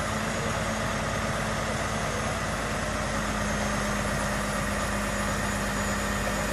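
Heavy truck diesel engine idling with a steady, even drone and a held low hum, with a faint high whine above it.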